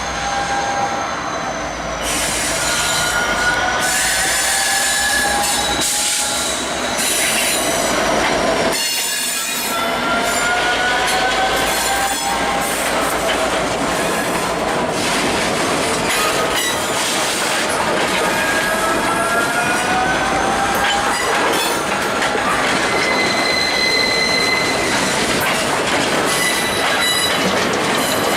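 Steel train wheels squealing against the rails as a train rolls past, over a steady rumble of the cars. The squeals wander up and down in pitch, and a steadier high squeal sets in near the end.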